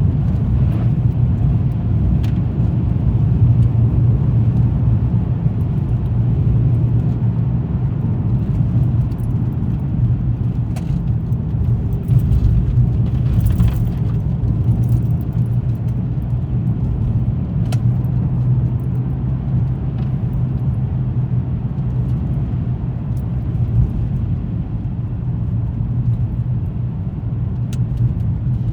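Car driving along a road: a steady low rumble of engine and tyre noise, with a few faint scattered clicks.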